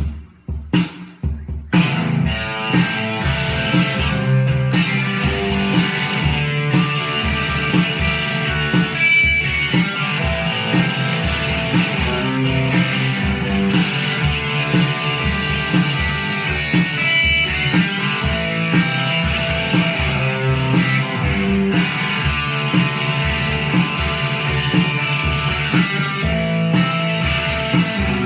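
Guitar-led band music, with electric guitar and bass over a steady beat. It comes in fully about two seconds in, after a few separate hits.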